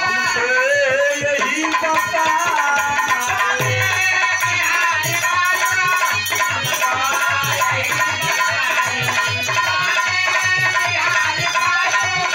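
Live Indian folk music: a man singing into a microphone, accompanied by a harmonium and a dholak. The dholak joins with a steady beat about four seconds in.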